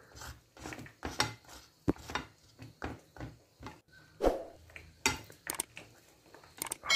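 A spoon clinking and scraping against a cut-glass dish in irregular short clicks, about two or three a second, while spreading a thick chocolate mixture over a layer of biscuits.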